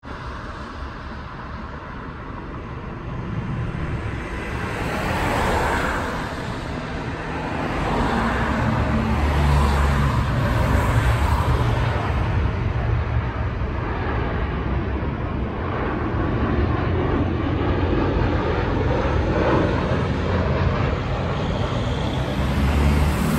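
Jet2 Boeing 737-800 airliner's jet engines rumbling as it passes low overhead, growing louder over the first several seconds and then holding steady.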